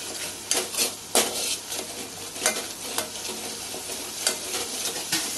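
A spice paste of Kashmiri red chilli powder and fennel sizzles in hot mustard oil in an aluminium pot while it is stirred with a steel spoon. The spoon clicks and scrapes against the pot about once a second, over a steady sizzling hiss. This is the masala being fried and kept moving so that it doesn't burn.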